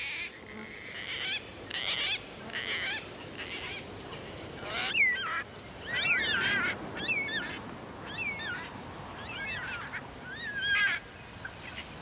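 Cockatoos calling: a string of harsh, rasping calls, then from about five seconds in a series of short squawks that bend up and down in pitch, roughly one a second.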